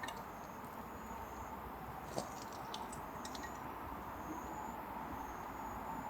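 Outdoor ambience: a steady, even hiss with short, high insect chirps repeating every second or so, and a few faint clicks a couple of seconds in.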